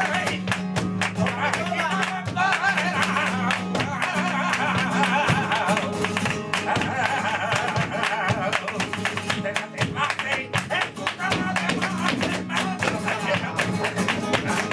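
Live flamenco soleá: a singer's wavering, ornamented lines come and go over flamenco guitar, with sharp percussive strikes throughout.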